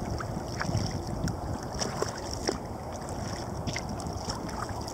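Kayak paddle strokes through choppy water: the blades dip in and splash, with scattered drips, over a low wind rumble on the microphone.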